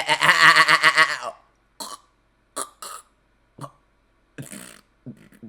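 A man's wordless vocal noises: a loud, drawn-out throaty sound for about the first second, then a string of short, separate cough-like sounds.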